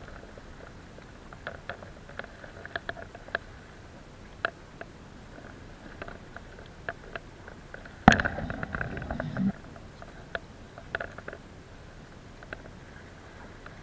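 Handling noise at a body-worn camera as a fish and fishing gear are handled: scattered small clicks and taps, then a loud knock about eight seconds in followed by about a second and a half of rumbling.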